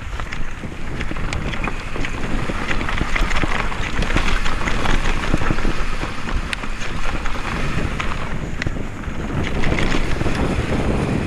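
Wind buffeting an action camera's microphone and tyre noise from a Specialized Kenevo mountain bike descending fast over a dry dirt forest trail, with many sharp clicks and rattles from the bike over bumps and roots.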